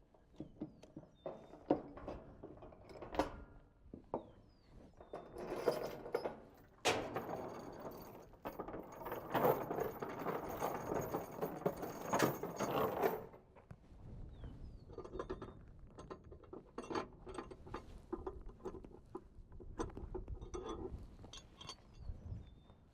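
Ratchet cargo straps being handled: metal hooks and buckles clicking and clinking, with a long stretch of rustling and scraping in the middle as the webbing is worked.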